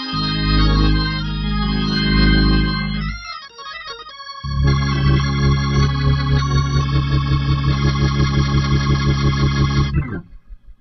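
Hammond-style drawbar organ playing the closing chords of a gospel hymn: a held chord, a brief quieter passage, then a loud final chord that pulses evenly several times a second with the wobble of a fast-spinning Leslie speaker, cut off about ten seconds in.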